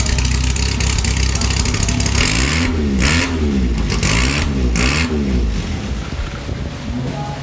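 Open-wheel race car's engine running near idle, then blipped several times around the middle, its pitch rising and falling with each blip before settling back down.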